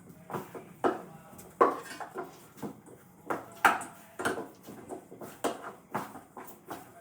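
Dishes and utensils being handled, a run of irregular short clinks and knocks, a few of them louder.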